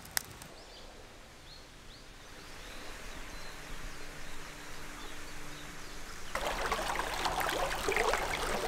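A single crackle from a campfire, then quiet outdoor hiss with a few faint chirps. Soft, steady music tones fade in, and about six seconds in the rushing of a stream flowing over rocks comes up and becomes the loudest sound.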